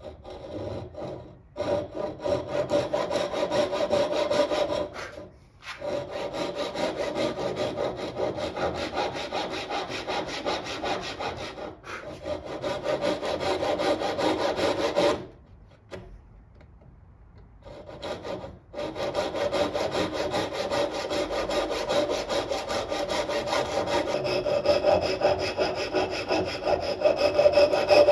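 Hand saw cutting through hardwood in quick back-and-forth strokes. It stops briefly twice, then pauses for a few seconds in the middle before sawing resumes.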